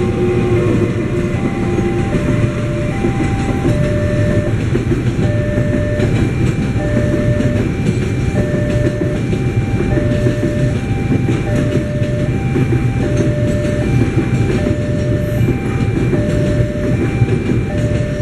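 Long container freight train rolling through a level crossing: a steady heavy rumble of wagons on the rails. Over it the crossing's electronic warning alarm repeats a two-note tone, alternating high and low, over and over.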